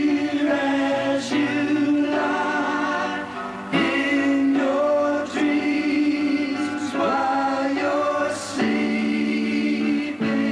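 Pop-rock song performed live: sung vocals with group harmonies holding long notes over electric guitar and band.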